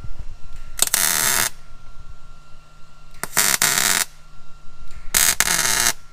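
MIG welder laying three short bursts of weld, each under a second and spaced about two seconds apart, crackling and spattering as a steel plate is welded into the car's floor.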